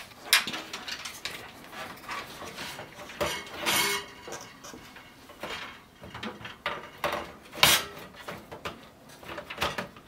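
Irregular clicks, taps and rustles of gloved hands handling parts and cables in an open metal PC case. There is a longer scraping rustle about a third of the way in and a sharp click about three-quarters of the way in.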